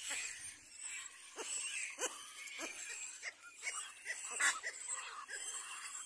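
Little black cormorant chicks begging at the nest as an adult feeds them: a quick series of short calls, several a second, the loudest about four and a half seconds in.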